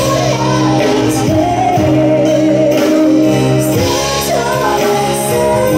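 Live pop band playing a ballad: a woman sings the lead melody over electric guitar, keyboard, bass and drums.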